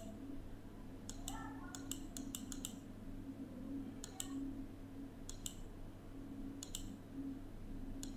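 Light clicks at a computer, about a dozen, some in quick runs and others spaced a second or so apart, over a faint steady low hum. The clicks advance the animations of a slide.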